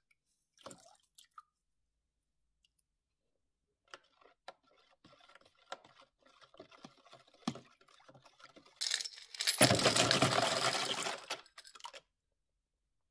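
Water swished around in a plastic tub with a few light ticks, then small steel bolts, nuts and washers tipped with their acidic liquid from a glass jar into the tub of baking-soda water: about three seconds of splashing and metal clattering that cuts off suddenly. The baking-soda water neutralizes the acid left from rust removal.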